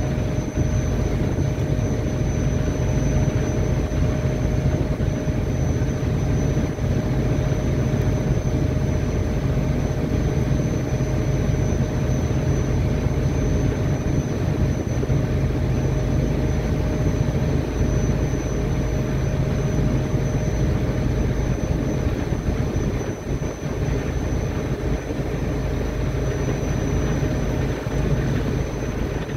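Steady low drone of a ship's engine, a continuous rumble with a thin high whine running above it.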